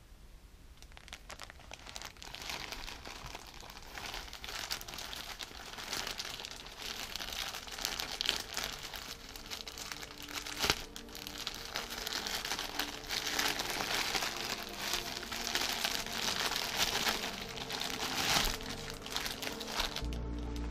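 Plastic packaging crinkling and rustling as a white plastic mailer is handled and torn open and a plush toy in a clear plastic bag is pulled out. There is one sharp crack about halfway through.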